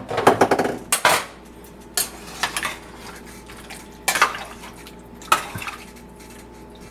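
Metal spoon knocking against the side of a stainless steel stock pot while stirring a chicken stew: about half a dozen separate clanks spread over several seconds, the first ones ringing briefly.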